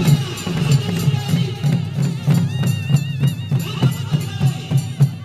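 Nepali folk music with a steady drum beat of about three strokes a second; a wavering high note comes in for about a second near the middle.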